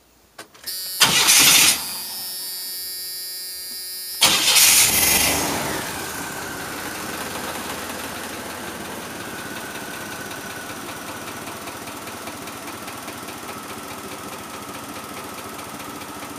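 Gasoline engine started: two loud bursts about a second and about four seconds in, then a steady idle with a faint whine. The owner says it runs poorly and blames the fuel injectors rather than the spark plugs.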